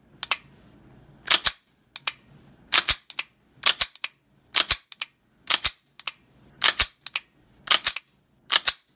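Glock pistol with a Johnny Glocks custom competition trigger being dry-fired. The trigger is let out to its very short reset and pulled again about once a second, and each cycle gives a close pair of sharp metallic clicks.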